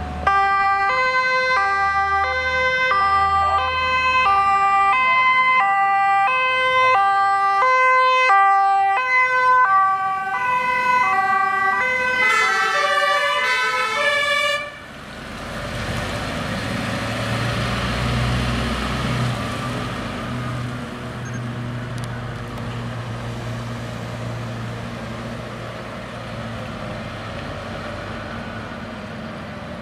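Airport crash tender's German two-tone siren horn (Martinshorn) sounding its alternating high and low notes, switching faster near the end; about fifteen seconds in it cuts off abruptly. After it, the heavy diesel engine of the MAN 8x8 crash tender runs with a low rumble that slowly fades as the truck drives off.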